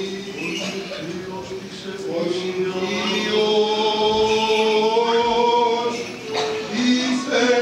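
Greek Orthodox Byzantine chant sung by male cantors: long, slow notes, with a melody moving above a steady held drone (the ison).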